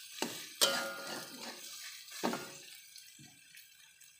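Metal spatula stirring meatballs in a thick chilli paste in an aluminium wok: scraping and three sharp knocks against the pan that ring briefly, with a weaker knock near the end.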